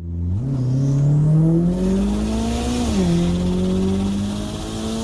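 Turbocharged four-cylinder engine of a 1997 Mitsubishi Eclipse GSX accelerating: the pitch climbs steadily, drops sharply about three seconds in as it shifts up a gear, then climbs again.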